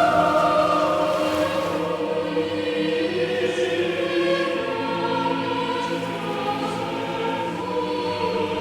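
Background choral music: a choir singing long, sustained notes.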